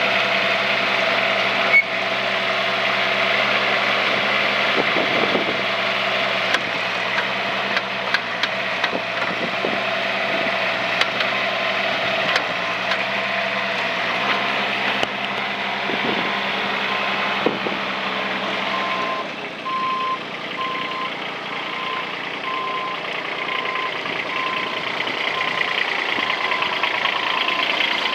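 AGT NT18K mini excavator running, with scattered knocks and clanks. From about halfway a travel alarm beeps at a steady, regular pace. About two-thirds in, the engine's low note drops away.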